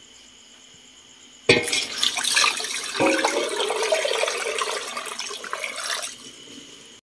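Water poured from a pot into an aluminium pot of beef shanks and vegetables, splashing over the ingredients. It starts about a second and a half in, surges again about three seconds in, and stops about six seconds in.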